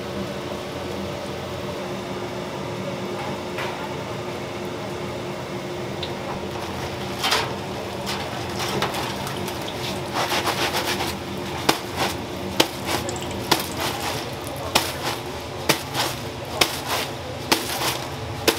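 Glutinous-rice donuts sizzling steadily in deep-fryer oil, then a wire mesh strainer scooping them out with a scraping clatter and a run of sharp metal taps, about one and a half a second.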